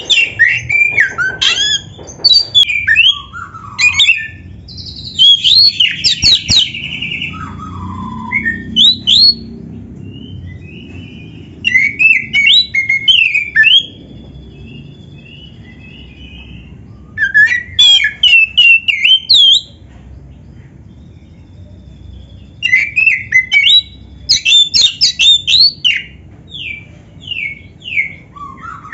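Oriental magpie-robin (kacer) singing: about five bursts of fast, varied whistled phrases with sweeping notes, separated by pauses of a few seconds.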